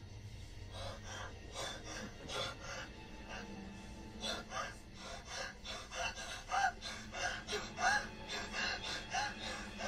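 A person gasping in quick, shaky breaths, about three a second, growing louder in the second half, over a low steady music drone.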